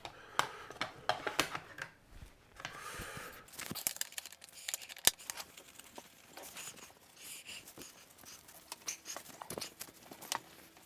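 Wiping and scrubbing down a 3D printer by hand with cleaner: irregular rubbing and scraping, with scattered light clicks and taps. One sharper tap comes about five seconds in.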